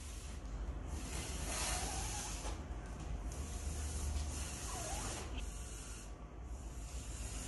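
A child blowing air through a straw into a foil balloon in about three long puffs, each an airy hiss.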